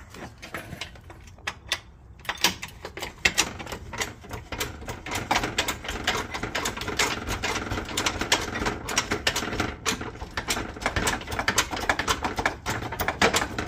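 Hydraulic engine hoist (cherry picker) being pumped by hand to lift a V8 engine off its blown mount: a dense, irregular run of metallic clicks and creaks that thickens about two seconds in.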